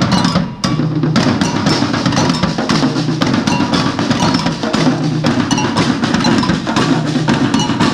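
A street drumming group playing marching snare drums and deeper bass drums together in a dense, steady rhythm.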